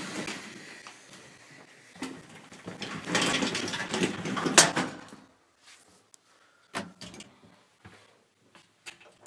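A door being moved, with a rustling scrape that ends in a sharp clack about four and a half seconds in, then a few light clicks of buttons being pressed near the end.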